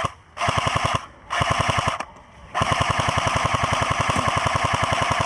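Airsoft rifle firing on full auto in three bursts: two short ones in the first two seconds, then a long burst of about three seconds, each a fast, even rattle of shots.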